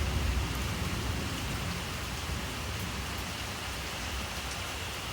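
Steady heavy rain falling, an even hiss with a low rumble underneath, easing slightly after the first second.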